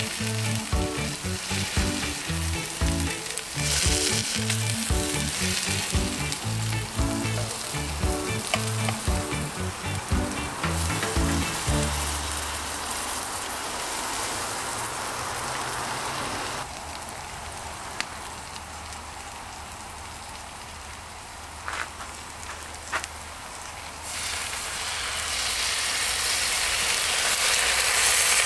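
Lion's mane mushrooms sizzling as they fry in butter and oil in a pan over a barbecue, stirred with a metal spoon. There are a few sharp clicks of the spoon on the pan in the second half, and the sizzle grows louder near the end.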